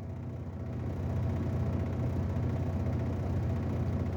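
A steady low mechanical hum, getting slightly louder about a second in.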